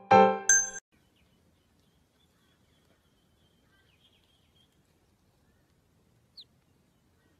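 A piano jingle ends within the first second. Then near silence with faint high chirps, and about six seconds in a duckling gives one short, high, falling peep.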